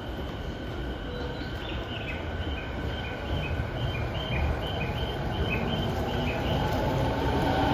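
Tokyo Waterfront Area Rapid Transit 70-000 series electric train starting to pull out of the station, its running rumble growing steadily louder. From about two seconds in to well past the middle, high chirping tones alternate between two pitches a few times a second over it.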